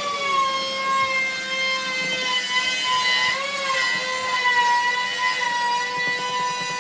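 Electric power tool motor running steadily with a high whine, its pitch dipping briefly about three and a half seconds in as it takes a little load.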